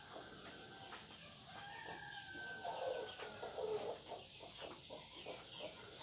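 Faint rooster crowing: one long call starting about a second and a half in.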